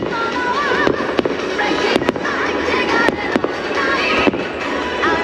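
Fireworks going off in repeated sharp bangs, roughly one a second, over a steady crackle, with music playing underneath.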